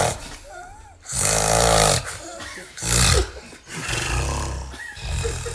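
A man snoring very loudly, each breath a rasping snore. The loudest snores come about a second in and again around the three-second mark, with weaker snoring after that.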